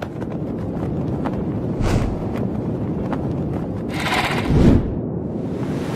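Intro sound design: a crackling, noisy bed with scattered clicks, a brief swoosh about two seconds in, and a louder whoosh about four seconds in that ends in a low boom as the logo appears.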